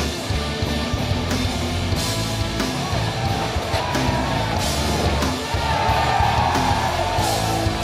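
Heavy rock music with distorted electric guitar and a steady drum beat.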